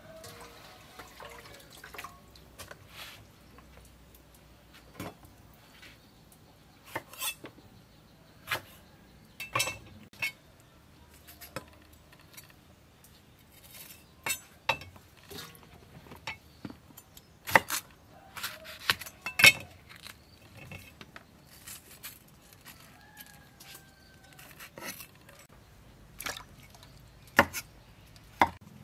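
Irregular sharp knocks of a cleaver on a wooden chopping board as red peppers are cut open and seeded, with light watery splashing in between.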